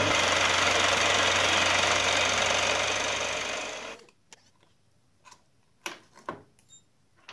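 Milling machine running with a fly cutter taking a facing cut across a steel block, a steady mechanical noise with a low hum that fades out about four seconds in. After it come a few light clicks and scrapes from handling the part.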